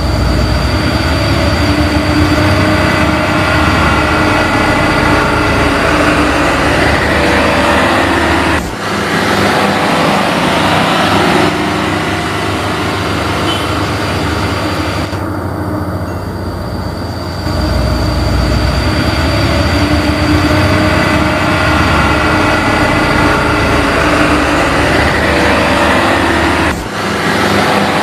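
Radio-controlled model construction machines running: small electric motors and gear trains whirring steadily, with a high steady whine over them. The sound cuts off abruptly and resumes twice.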